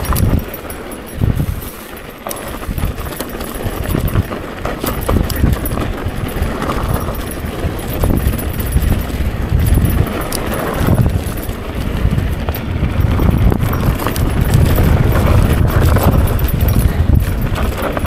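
Mountain bike riding over rough, loose gravelly singletrack: tyres crunching and the bike rattling and knocking irregularly over bumps, over a low rumble of wind on the camera microphone.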